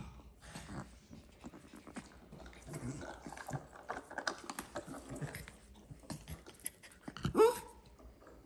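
Two nine-week-old Shih Tzu puppies chewing and tugging at a rope toy, with small dog noises and panting, and one short, loud, rising yip about seven seconds in.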